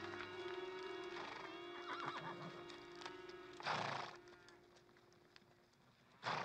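Two short, loud horse sounds about two and a half seconds apart, over an orchestral score holding sustained notes.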